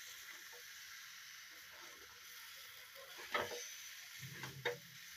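Taro, potato and prawn curry sizzling faintly in a wok while a spatula stirs it, with two louder scrapes of the spatula against the pan in the second half.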